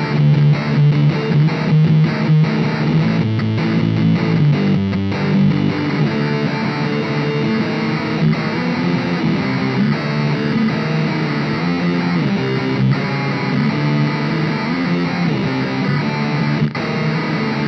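Electric guitar played through a bit-crusher pedal (RPS Effects Bit Reactor), giving a gritty, distorted lo-fi tone. Choppy repeated chords for the first few seconds, then held notes.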